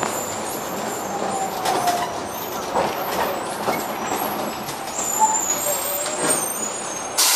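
Cabin noise of a moving bus: a steady rumble of engine and road with light rattles. Just before the end a loud hiss starts suddenly.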